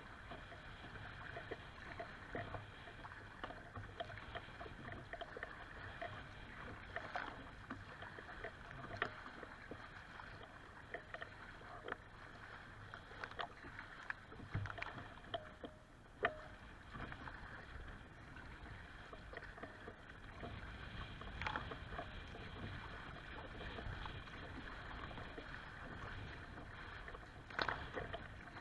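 Choppy lake water slapping and splashing against a kayak's hull, with irregular sharp splashes over a steady rush of water. The loudest splash comes about halfway through, with a few more near the end.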